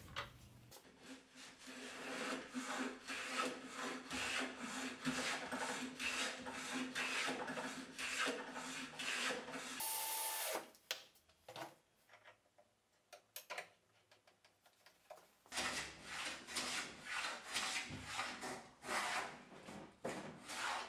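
Quick repeated rasping strokes of a hand tool working wood. About ten seconds in, a cordless drill runs briefly, boring a small plywood piece. A nearly quiet stretch with a few clicks follows, and then, for the last five seconds or so, a hand plane takes strokes along a board clamped in the vise.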